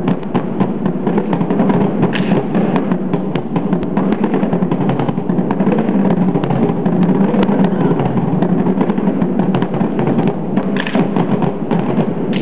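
Several marching snare drums played together in a fast, dense run of stick strokes and rolls.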